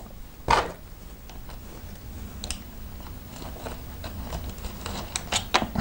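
Small plastic clicks and handling noise as an RC car wheel is pushed onto its hex hub and the wheel nut is fiddled onto the axle, with one sharper click about half a second in and a cluster of small clicks near the end.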